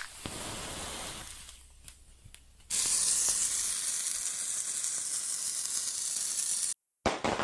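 Cartoon sound effect of a lit firework fuse sizzling. A fainter hiss comes first, then a loud, steady hiss from about three seconds in that cuts off abruptly near the end.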